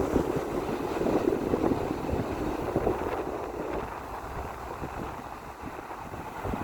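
Ocean waves washing in, with wind rumbling on the microphone; the wash eases about four seconds in and builds again near the end.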